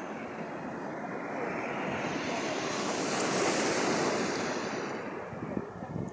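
Sea surf washing up the beach, a steady rush that swells to its loudest about halfway through and then eases, with wind buffeting the microphone near the end.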